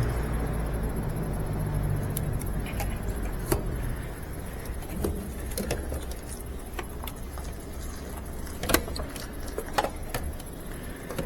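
Scattered small metallic clicks and light rattling from hands working at the washer's wiring and parts, over a low steady hum that fades after about four seconds.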